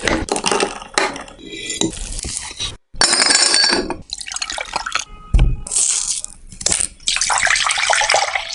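Kitchen sounds of cake batter being prepared: liquid pouring and dripping, with utensils and glassware clinking against bowls. The sound comes in several short segments, one of which breaks off abruptly about three seconds in.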